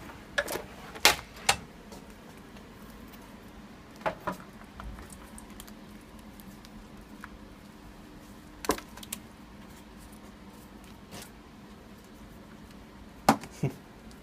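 Paperfox H500a die cutter being wound by hand with a magnet sheet passing through it: scattered sharp clicks and knocks, in small clusters a few seconds apart, over a faint steady hum.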